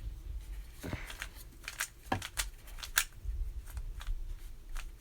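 Rubik's cube layers being turned by hand: a quick, irregular run of sharp plastic clicks and clacks as the last moves of the solve go in.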